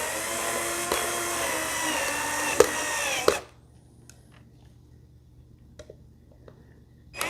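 Power drill driving a screw into the shelf's particleboard panel: the motor spins up and runs steadily for about three and a half seconds, with a couple of clicks as the screw seats, then stops suddenly. After a quiet stretch with light handling ticks, the drill gives a short burst near the end.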